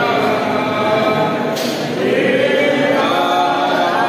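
A group of sadhus' voices chanting together, many men's voices in unison, with a short clatter about a second and a half in.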